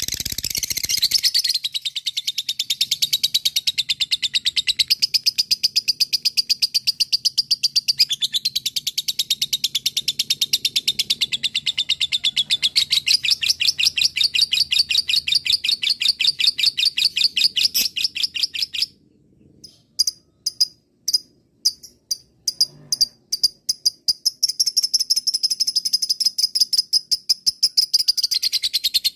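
Lovebird giving its long, rapid chattering trill ("ngekek panjang"), a very fast high-pitched run of chirps lasting nearly twenty seconds. It breaks off into a handful of separate sharp chirps, then the fast trill starts again near the end.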